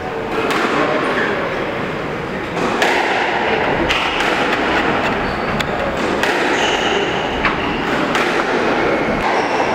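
Squash rally: the ball struck by rackets and smacking off the walls, a sharp knock about once a second at an uneven pace, over steady background noise.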